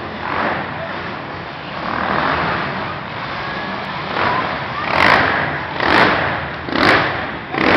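Quad (ATV) engines running on a dirt track, their sound swelling and fading, with four short loud bursts about a second apart in the second half.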